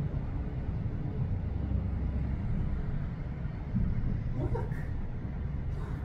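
Steady low rumble of street traffic. A short, faint wavering sound rises in pitch about four and a half seconds in.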